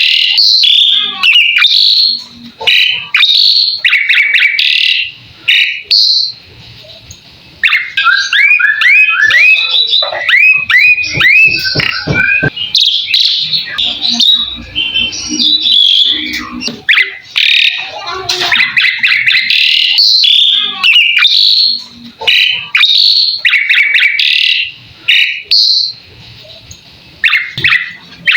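Javan pied starling (jalak suren) singing a loud, varied song of chattering phrases and whistles, broken by short pauses. About a third of the way in comes a run of quick rising whistled notes.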